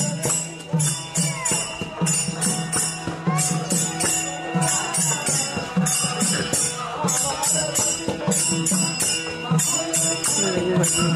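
Group singing a Tamil devotional bhajan, with hand cymbals striking in a steady beat about three times a second.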